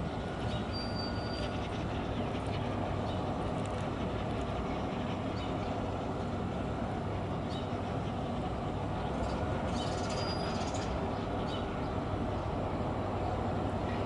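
Steady low rumble of a large cruise ship's engines and machinery carrying across the harbour as the ship sails slowly past. A short high whistle sounds about a second in and again near ten seconds, with a few faint clicks.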